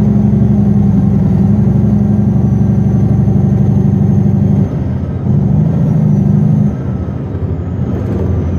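Western Star logging truck's diesel engine heard from inside the cab, pulling steadily, then easing off about halfway through, picking up again briefly and dropping back to a lower, lighter drone near the end.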